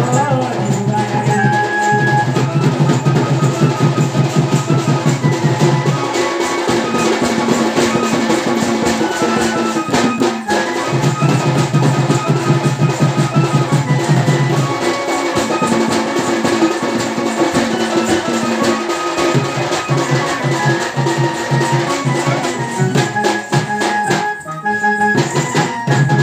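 Live Sambalpuri folk dance music: a two-headed barrel drum beaten in a fast, driving rhythm, with a sustained melody over it.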